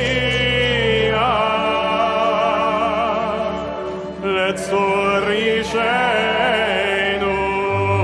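Congregation singing a Hebrew psalm melody together, many voices on long held notes. A low steady note underneath stops about a second and a half in and comes back near the end.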